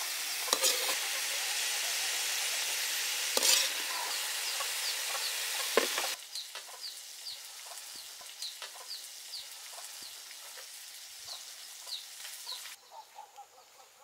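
Stir-fried pork ribs with pineapple and bell peppers sizzling in a wok, with a metal ladle scraping the wok three times as the food is scooped out. About six seconds in the sizzle cuts off and short high bird chirps repeat over a quieter background, with a few light clicks.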